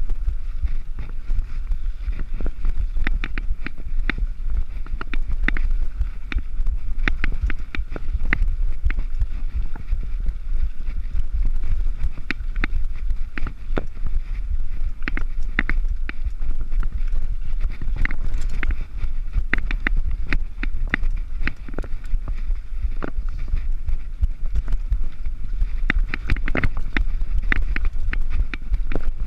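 Mountain bike rolling fast over rough gravel and rock singletrack, with irregular clicks and clatters as the bike rattles over bumps and stones. A steady low wind rumble sounds on the microphone.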